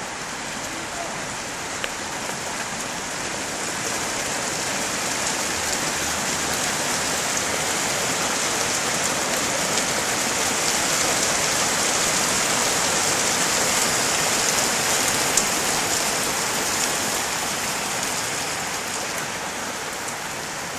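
Rain falling steadily, swelling louder toward the middle and easing a little near the end, with a couple of sharp ticks.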